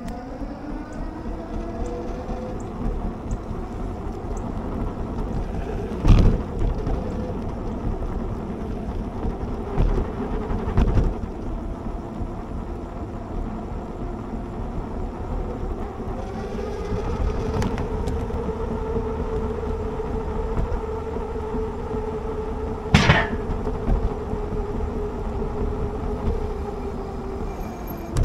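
Lectric XP Lite e-bike's rear hub motor whining at a steady pitch under way, over a rush of wind and tyre noise. A few sharp knocks as the bike jolts over bumps, the loudest about six seconds in and near the end.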